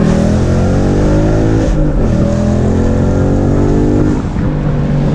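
Car engine at full throttle, accelerating hard in a roll-race pull. Its pitch climbs, drops at an upshift about two seconds in, climbs again, then eases off a little after four seconds.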